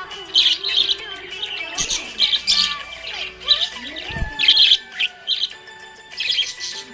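Budgerigars chirping in quick, busy bursts of high chirps and short twittering notes, with one low thump about four seconds in.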